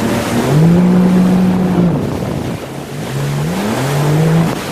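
Yamaha VX WaveRunner engine running at speed, its note dropping and climbing again several times, over a steady rush of water spray.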